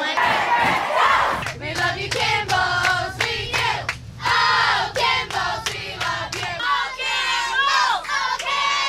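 A group of girls sing and shout a camp chant together while clapping their hands.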